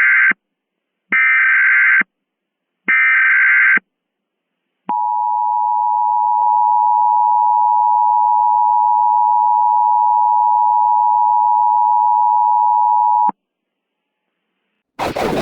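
Emergency Alert System SAME header: three bursts of warbling digital data tone, each about a second long with short gaps, the first already under way. About a second later the steady two-tone EAS attention signal starts, holds for about eight seconds and cuts off abruptly, marking the start of a new alert.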